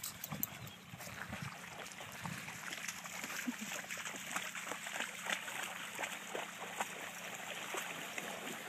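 Several dogs wading through shallow water, their legs making a steady run of small splashes and sloshes.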